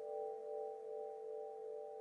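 Wind chimes ringing on after a strike: several tones sound together and slowly fade, with a gentle wavering in loudness.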